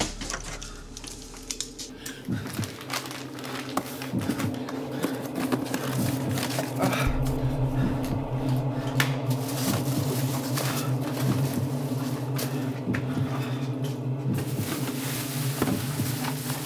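Low droning music of a few steady layered tones, with scattered clicks, knocks and rustling from boxes and plastic bags being rummaged through.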